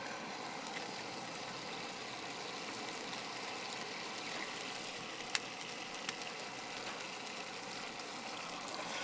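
An egg frying in hot oil in a pan on a camp stove: a steady sizzle over the burner's steady rush, with one sharp click a little past five seconds in.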